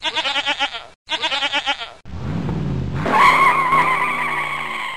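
Two goat bleats, each about a second long and quavering quickly. Then a car engine revs up, followed by a long tire squeal.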